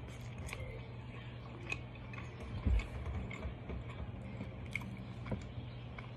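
Chewing and small mouth and finger sounds of someone eating fried fish by hand from a foam container. Scattered small clicks, one low thump near the middle, and a steady low hum underneath.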